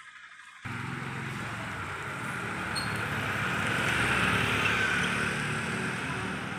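A motor vehicle's engine running with a low hum, starting abruptly half a second in and swelling to a peak about four seconds in before easing slightly.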